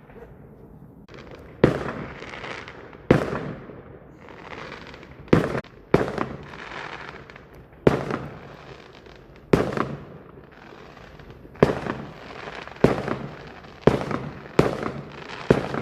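Fireworks bursting: about a dozen sharp bangs at uneven intervals, each followed by a short trailing tail, the bangs coming quicker toward the end.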